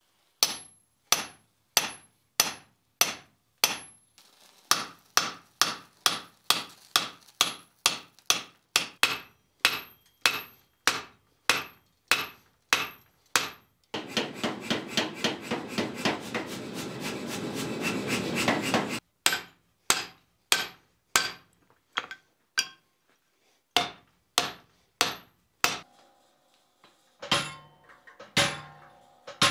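Hand-hammer blows on hot steel on an anvil, about two a second, each with a bright ring, as a punch is driven into a glowing claw-hammer blank. About halfway through, a power hammer pounds the hot piece with rapid blows for about five seconds, then single hand-hammer blows return, sparser and lighter near the end.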